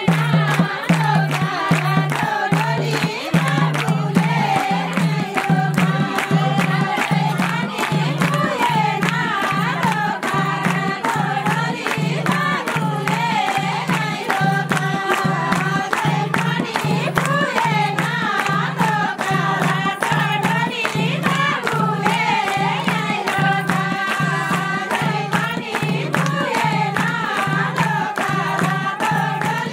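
Group of women singing a Nepali folk song over a steady, even drum beat, with hand-clapping.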